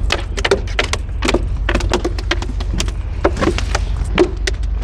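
A freshly landed flounder flopping on the boat deck: a quick, irregular run of slaps and knocks that stops shortly before the end.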